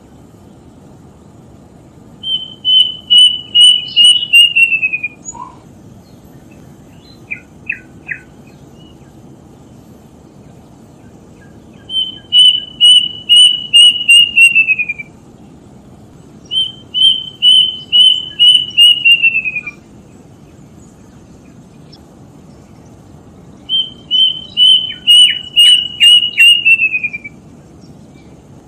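A bird calling: four times, a fast series of about a dozen high, clipped notes lasting about three seconds, the pitch dropping slightly toward the end of each series, with three short notes in a quieter gap between the first and second.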